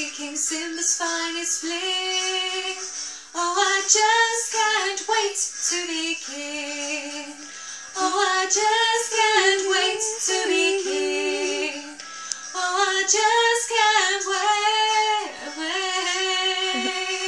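A woman singing solo, her voice carried in phrases a few seconds long with short breaks between them.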